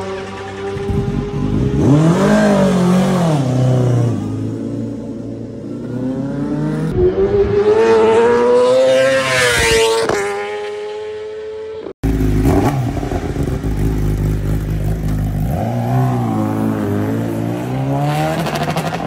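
Superbike engines: revs rising and falling at first, then an engine pulling up through the revs for several seconds and dropping off sharply about ten seconds in. After a brief break, a bike runs at lower, uneven revs with a few small blips.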